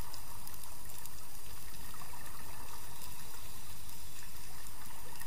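Underwater sound picked up by a dive camera: a steady water hiss with faint scattered clicks.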